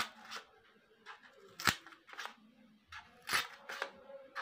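Scissors cutting around the rim of a thermocol (polystyrene foam) plate. There are several sharp snips at uneven spacing: a loud one at the start, another a little under two seconds in and another about three and a half seconds in, with softer snips between them.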